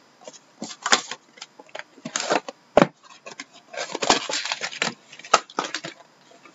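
Trading-card box being opened and a paper-wrapped card pack pulled out: irregular rustling and crinkling of packaging, with a few sharp knocks against the desk.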